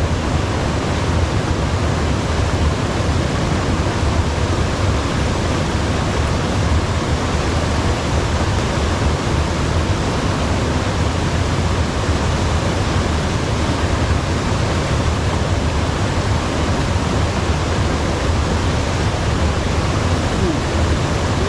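A steady, even rush of flowing water with a deep low rumble underneath.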